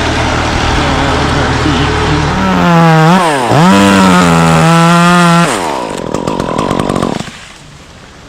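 Stihl two-stroke chainsaw running at a low drone, then revved to full throttle. The pitch dips briefly once and climbs back, then the throttle is released and the engine note falls away.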